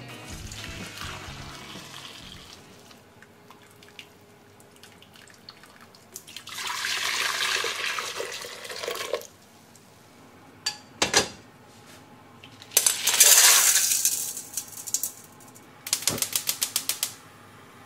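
Red shiso juice poured from a bowl back into a stainless steel pot with a steady rush of liquid, followed by a couple of sharp knocks and a second, louder rush. Near the end comes a quick rattle of clicks as lumps of crystal rock sugar drop into the pot.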